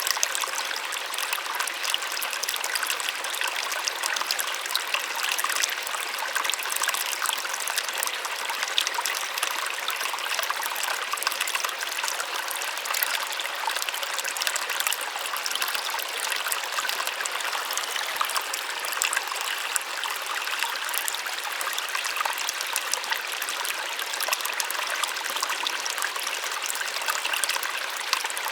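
Small waterfall splashing steadily: an even, hissing rush of falling water with many small splashes and little low rumble.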